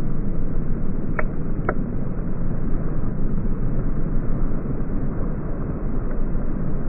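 Thunder rumbling on steadily, deep and low without sharp cracks.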